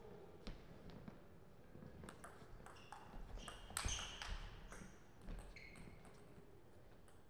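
Table tennis ball being hit back and forth in a rally, a series of light, quick clicks of ball on bat and table that come thickest and loudest around the middle.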